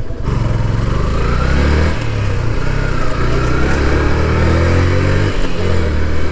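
Motorcycle engine pulling away under throttle, with its note breaking and resetting about two seconds in and again about five and a half seconds in as gears are changed.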